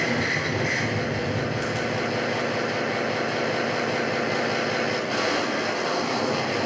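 Live electronic soundscape mixed on a DJ controller: a steady, dense rumbling noise texture with faint held tones.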